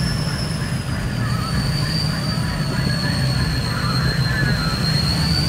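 Lifted pickup truck engine rumbling as the truck rolls slowly past on soft sand, with a steady high-pitched whistle that dips slightly in pitch and comes back up.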